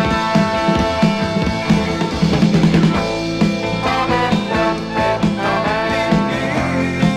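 Progressive/heavy rock recording from 1978 by a band with drums, electric guitar and a horn section, playing with held notes over a steady drum beat.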